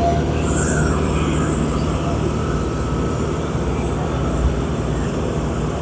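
Steady low drone of heavy vehicle engines running, with a constant hum and road noise.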